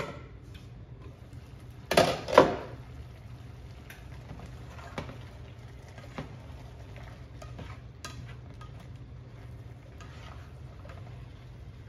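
Cookware clattering twice about two seconds in, then a spatula stirring and scooping a shrimp-and-vegetable stir-fry in a frying pan with light scrapes and taps, over a low steady hum.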